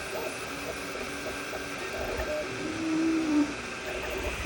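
3D printer printing: its stepper motors whir as the print head moves, with motor tones that shift in pitch as it changes speed and direction, and one stronger tone about three seconds in.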